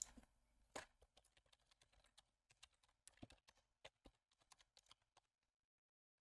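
Faint computer keyboard typing: a run of irregular key clicks that stops about a second before the end.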